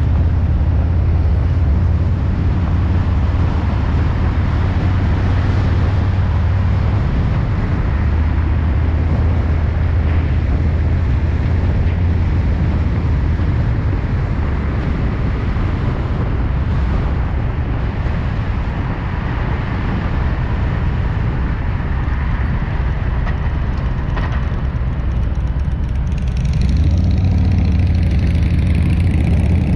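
Motorcycle engine running steadily under way, with a constant rush of wind and road noise. The engine grows louder near the end.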